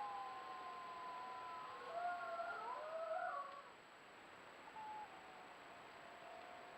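A pack of wolves howling in chorus, several long gliding howls overlapping at different pitches, trailing off about three and a half seconds in to fainter calls.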